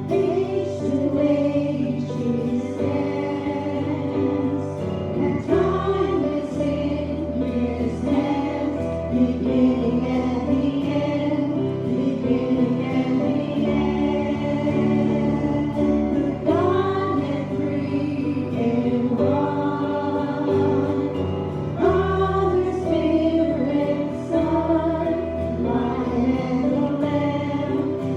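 A group of voices singing a gospel hymn together, in long held notes with steady low accompaniment underneath.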